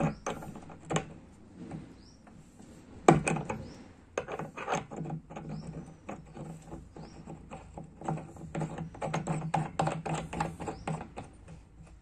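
Handling noise from a metal pig drinking nipple being screwed by hand onto a brass threaded fitting in a plastic jerrycan: irregular clicks, knocks and rubbing as the can shifts on a wooden plank, with the loudest knock about three seconds in.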